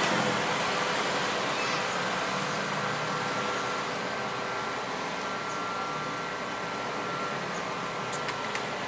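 Sakai ER300 road stabilizer's diesel engine running steadily as the heavy machine drives slowly along the road.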